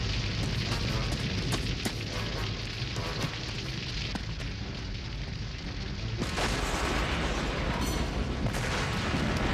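A large house fire burning: a steady low rumble of flames with many sharp crackles and pops. About six seconds in, the fire noise swells suddenly into a louder whoosh and stays loud.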